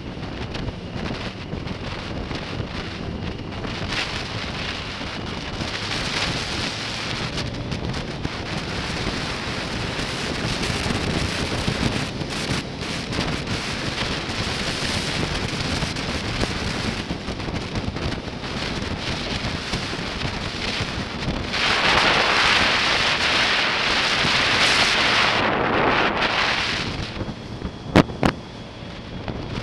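Wind rushing over the microphone of a camera on a moving motorcycle, a steady noisy roar. It grows louder for a few seconds about three quarters of the way through, then eases. Two sharp clicks come near the end.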